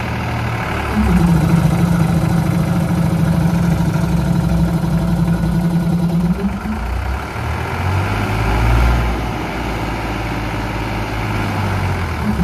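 Ford 3600 tractor engine running with its PTO-driven air compressor, revving up about a second in, holding a steady higher speed, then dropping back near seven seconds, with a shorter rise around nine seconds.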